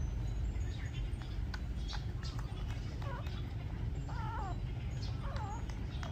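Newborn puppies whimpering: three short, wavering high-pitched cries about a second apart, from about three seconds in, over a steady low background rumble.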